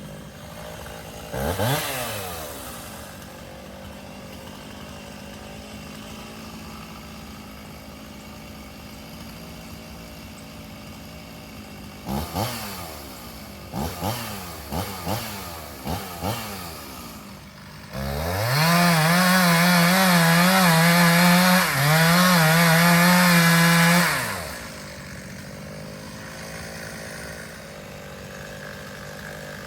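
Two-stroke chainsaw idling, revved briefly near the start and several quick times past the middle, then held at full throttle for about six seconds, its pitch wavering as it cuts into wood, before it drops back to idle.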